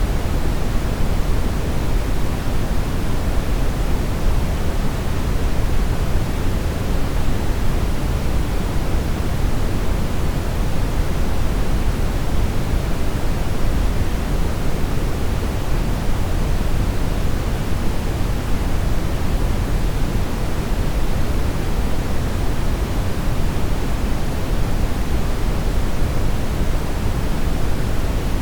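Television static from a lost signal: a steady, even hiss with no tones or breaks, heavier in the low end than the top.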